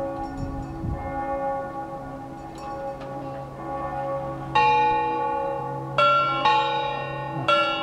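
Church bells ringing: the hum of earlier strokes carries on at first, then a loud new stroke comes about four and a half seconds in, followed by three more over the next three seconds, each ringing on.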